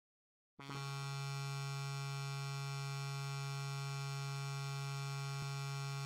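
Ice hockey goal horn sounding one long, steady, deep blast that starts abruptly about half a second in.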